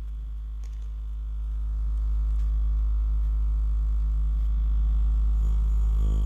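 A homemade hair-spray-can coaxial thermoacoustic Stirling engine running: a loud, steady, low drone with overtones that grows louder about two seconds in.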